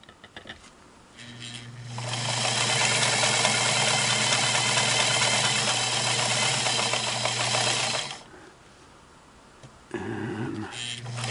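Singer Model 237 sewing machine stitching a close zigzag with the stitch length turned down very fine, about 25 stitches per inch. After a few light clicks it starts about a second in, runs steadily for about six seconds and stops, then starts again, more quietly, near the end.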